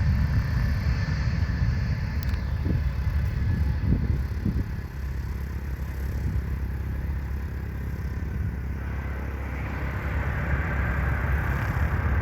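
Embraer E195-E2's geared turbofan engines running up on the ground in a test run, a steady low rumble that eases about five seconds in and builds again toward the end.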